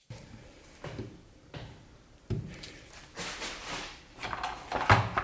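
Screwdriver prying at a deep-set oil seal in a Marzocchi Monster fork leg: a series of metal scrapes and knocks, the loudest near the end.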